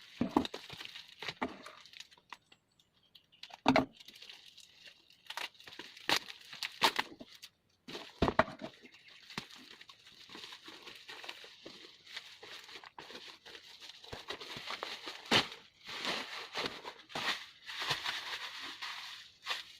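Delivery packaging being torn open and handled: irregular tearing and crinkling, with scattered sharp clicks and knocks.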